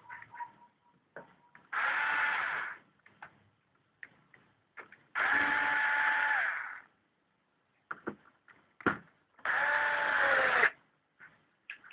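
A small motorised tool running in three short bursts of one to two seconds each, with faint clicks and taps between them.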